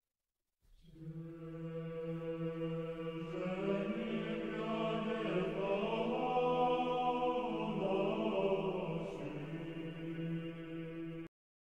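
Orthodox church choir singing a chant, with a steady held low drone under moving upper voices. It fades in just after the start and cuts off abruptly near the end.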